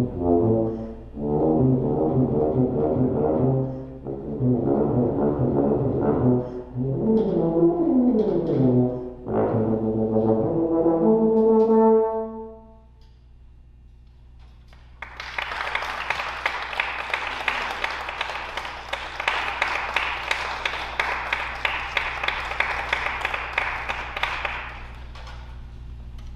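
Unaccompanied tuba playing a run of notes that climbs to a held high note and stops about twelve seconds in. After a short pause, an audience applauds for about ten seconds.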